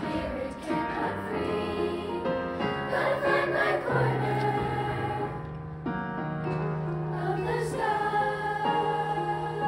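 Sixth-grade children's choir singing, with a short break between phrases about five and a half seconds in.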